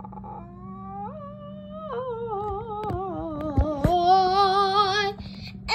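A child humming long wordless notes with a wobble in the pitch. The tune steps up about a second in and back down a second later, then swells louder near the end before breaking off. A couple of soft knocks come midway.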